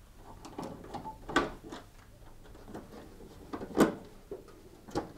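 Screwdriver undoing the screws that hold a tumble dryer's control panel: scattered light clicks and knocks, the loudest about a second and a half in and just before four seconds.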